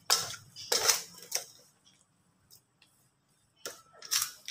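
Plastic rice paddle scraping and mashing a thick grated taro and coconut mixture in a rice-cooker pot: several short scrapes in the first second and a half, a pause, then two more strokes near the end.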